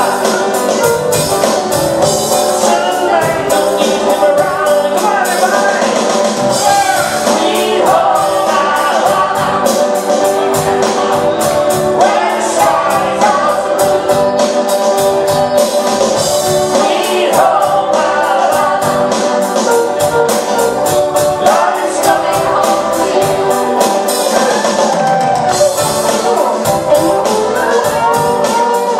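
Live band playing a song with electric guitars and drums under a lead singer, over a steady drum beat.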